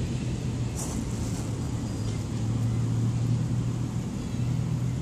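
Cat purring close to the microphone: a steady low rumble that swells and eases every second or so, with a brief faint rustle about a second in.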